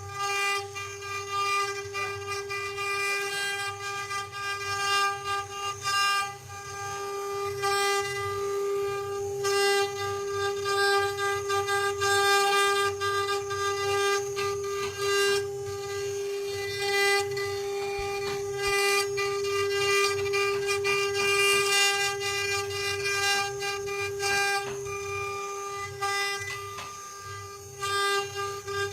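CNC wood-engraving router's spindle running with a steady high whine, with rougher noise and a low buzz coming and going underneath as it works.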